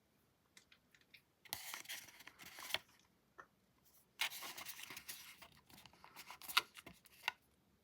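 Candy packaging being torn open and crinkled by hand, in two spells of rustling with sharp crackles, the second longer than the first.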